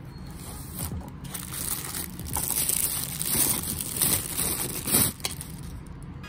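Clear plastic bag crinkling as a wristwatch wrapped in it is handled and pulled open. The crackling builds from about a second in and is loudest just before it stops, about five seconds in.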